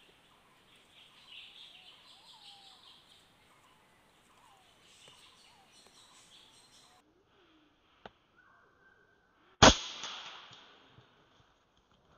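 A PCP air rifle fires once, a sharp crack about ten seconds in that dies away over about a second; a faint click comes shortly before it. Earlier, birds chirp over a high buzzing in the trees.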